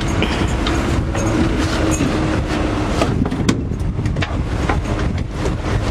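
A boat's engine drones steadily under wind buffeting the microphone, with a faint held tone that fades out near the end.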